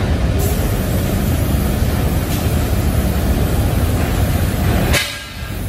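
Steady hiss of a gravity-feed compressed-air paint spray gun over a low, continuous drone of workshop machinery. The sound dips briefly near the end.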